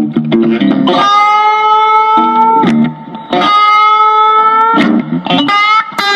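Background music: electric guitar playing long held notes with quicker picked runs between them.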